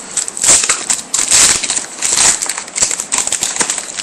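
Bowman Chrome trading-card pack wrappers crinkling as packs are torn open and handled, in several short bursts.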